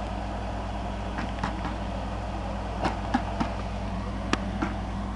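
Core-drilling rig's engine running at a steady low hum, with a handful of short sharp clicks and knocks scattered through.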